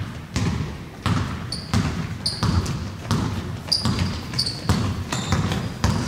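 Ball bouncing on a hard floor about twice a second, with short high squeaks between the bounces, in a large echoing hall.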